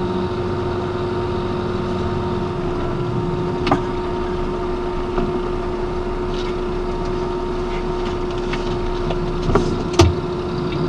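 Lorry's diesel engine running steadily at low revs while the truck manoeuvres slowly. There is a faint click about four seconds in and a louder, sharp click with a thud near the end.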